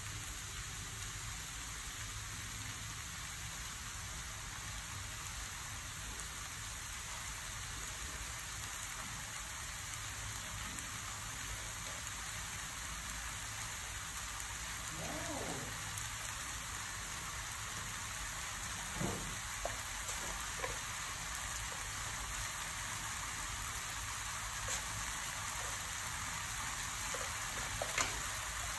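Sauced noodles and greens sizzling steadily in a metal pan on the stove, with a few faint ticks now and then.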